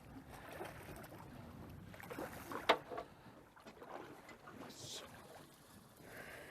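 Faint noise of a small fishing boat on the water, steady and low, with a single sharp knock about two and a half seconds in.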